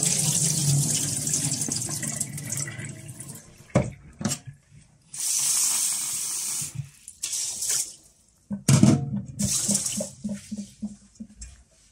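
Kitchen tap running and water pouring in a stainless steel sink as sushi rice is rinsed in a rice cooker pot, with a couple of sharp knocks about four seconds in. Near the end, hands swish and rub the wet rice in the pot in quick strokes.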